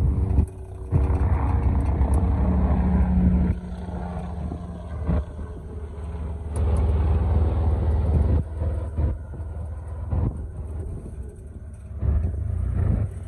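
Off-road 4x4 engine running under load while rock crawling, revving up in three surges (about a second in, around six seconds in, and near the end) and easing back between them, with a few sharp knocks in the lulls.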